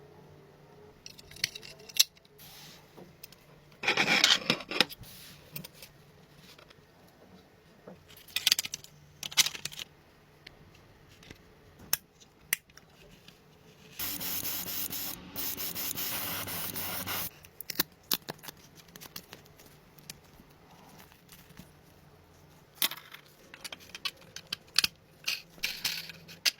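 Hands-on workshop handling: scattered sharp clicks, taps and rubbing, with a denser rustle about four seconds in. A steady hiss, like an aerosol spray, lasts about three seconds around the middle.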